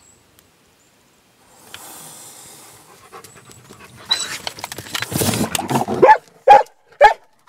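A Jämthund breathing hard and scuffling among rocks, then barking loudly three times near the end: the short bay barks of a dog holding a badger in its den.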